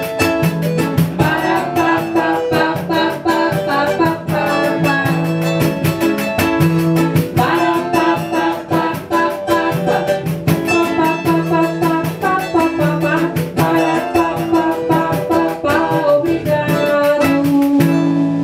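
Small acoustic band playing live: a woman singing in Portuguese over strummed nylon-string guitar and cavaquinho, with hand percussion keeping a quick, even beat. Just before the end the percussion stops and a final chord is held.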